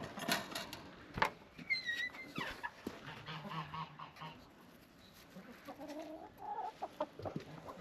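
Farmyard poultry, chickens clucking and calling in short, scattered calls, with sharp taps and clicks in between.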